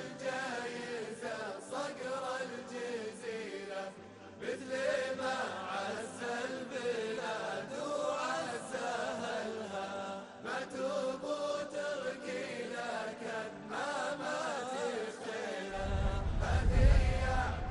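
Wordless chanted vocal line of a Gulf Arabic shaila, voices humming a long gliding melody. A deep low rumble comes in near the end.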